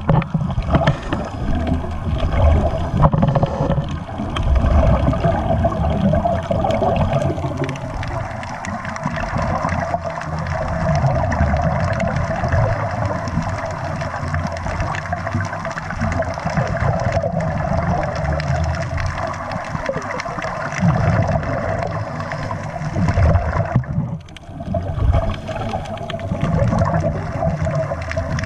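Scuba diver breathing underwater through a regulator, heard underwater: exhaled air bubbles gurgling out in surges every few seconds over a steady hum.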